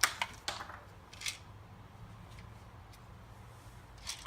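A few light clicks and rattles of small metal screws being handled, in the first second and a half, then quiet.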